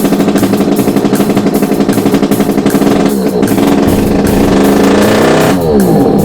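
Background music with a steady, fast beat and plucked guitar-like strings.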